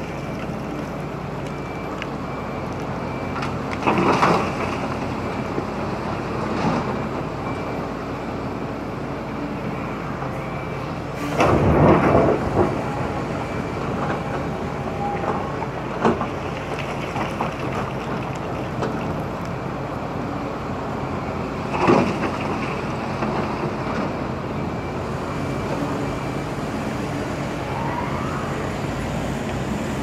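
CAT 320D excavator's diesel engine running under hydraulic load while it digs, with a few loud scrapes and crunches of the bucket in stony ground, the longest about twelve seconds in. A faint, evenly spaced high beeping from a warning alarm runs in the background.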